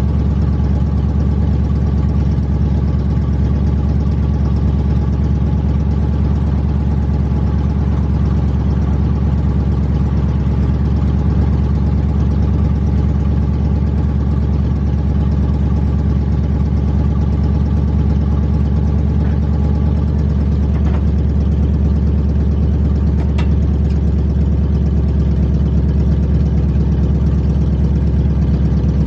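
Car engine running steadily at an unchanging pitch, with a few faint clicks about two-thirds of the way through.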